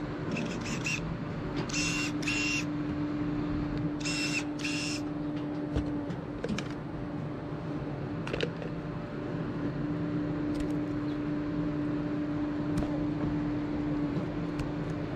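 A steady mechanical hum with a droning tone, interrupted by three pairs of short, high hissing bursts in the first five seconds and a few faint clicks later.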